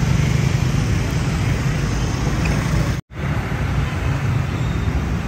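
Steady road-traffic noise, a continuous low rumble of vehicles, which cuts out for an instant about three seconds in.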